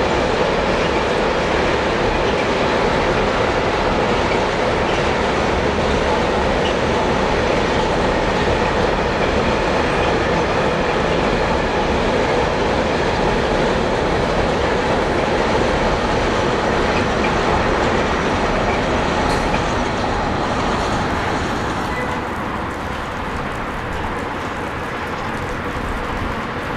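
Freight train of tank wagons rolling past, a steady rumble and rattle of the wagon wheels on the rails that eases off as the last wagons go by near the end.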